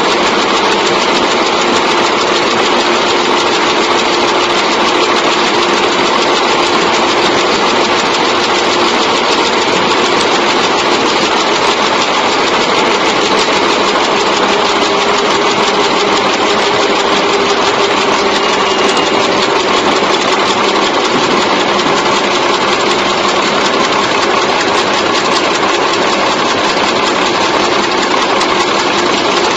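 Automatic chewing gum machine running steadily: a fast, even mechanical clatter over a constant hum.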